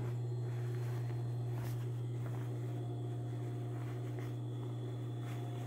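A steady low hum, with faint rustling of fabric as a tote bag and its lining are pulled through the lining's opening to turn them right side out.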